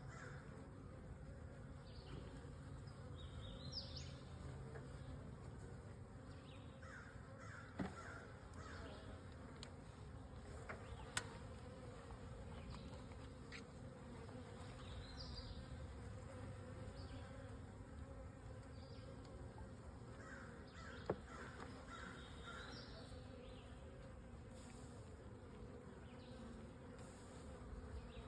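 Honeybees buzzing in a steady low drone around an opened nuc hive. A bird calls several times, and a few sharp clicks come through, the knock of hive parts being handled.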